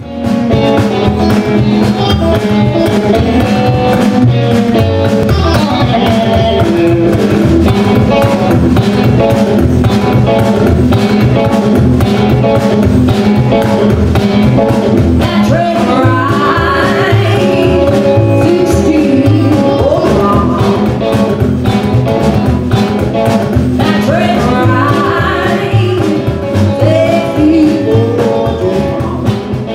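Live band playing a bluesy rock-and-roll number on upright double bass, drum kit and hollow-body electric guitar, with a woman singing.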